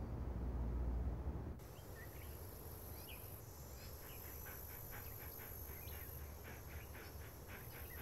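A faint low hum cuts off suddenly about a second and a half in. It gives way to outdoor ambience of small birds chirping, many short calls in quick succession, over a steady high-pitched buzz.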